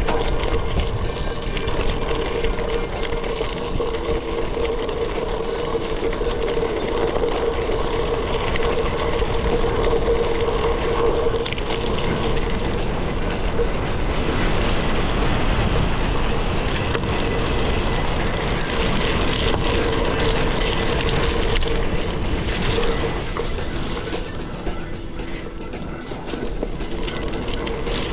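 Gravel bike rolling on a dirt and gravel trail: steady rumble from its 38 mm Panaracer GravelKing SS tyres, with the bike rattling and clicking over the rough ground. The rumble dips slightly about four-fifths of the way through.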